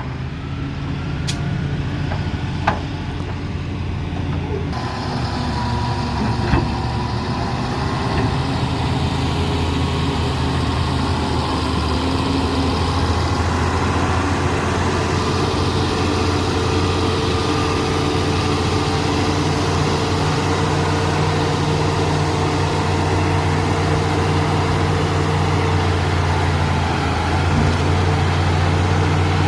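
Heavy diesel engine of earthmoving machinery running steadily under work, growing slightly louder, with three short knocks in the first seven seconds.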